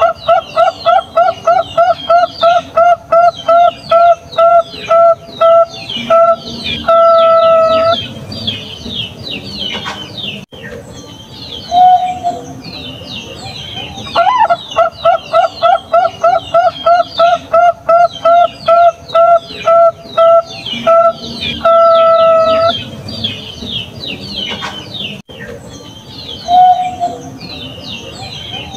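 Bangkok-type zebra dove (perkutut) singing: two bouts of rapid staccato coos, about three a second, each closed by one longer drawn-out note and followed a few seconds later by a single short coo. High twittering of small birds runs throughout.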